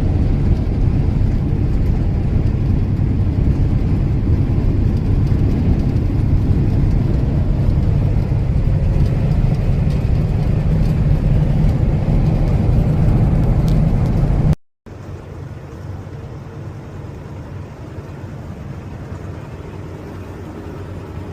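Steady low drone of a semi truck's engine and road noise heard inside the cab while driving. About fourteen seconds in it cuts off abruptly, then continues noticeably quieter.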